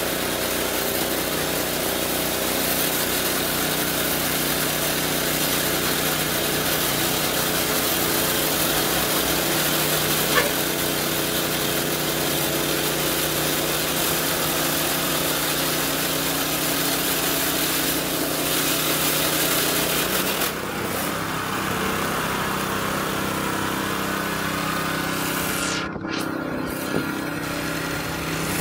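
A motor engine running steadily. Its sound shifts about twenty seconds in, and it cuts off abruptly at the end.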